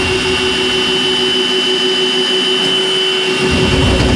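Electric drum drain-cleaning machine running steadily, its motor whining as the coiled steel cable spins and is fed into a kitchen sink drain. The low rattle of the cable drops away for a couple of seconds in the middle, then comes back.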